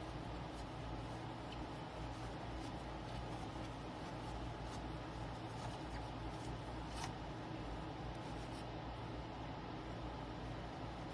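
Light rubbing and scratching of hand work on an LCD panel while new polarizer film is being applied, with small ticks and one sharper tick about seven seconds in, over a steady low hum.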